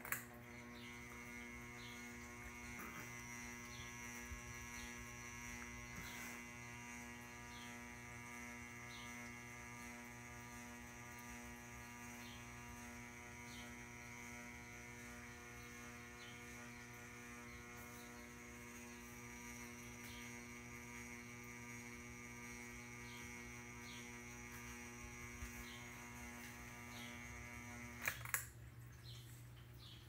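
Ceiling fan motor making a loud, steady electrical buzz, which the owner takes for an electrical fault in a fan on its last legs. A click at the start, and about two seconds before the end two clicks, after which the buzz cuts out and only a low hum remains.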